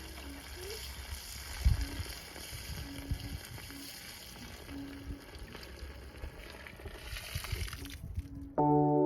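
Car-cleaning work noise: a steady hiss with scattered knocks and thumps. Ambient music with a singing-bowl tone comes in suddenly near the end.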